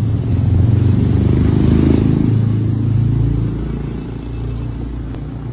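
A motor vehicle engine running close by: a steady low rumble that eases off a little after about three and a half seconds.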